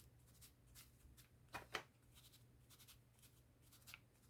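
Near silence with faint, scattered taps and light scrapes of hands working paper and craft tools on a desk, including two quick clicks close together about a second and a half in, over a low steady hum.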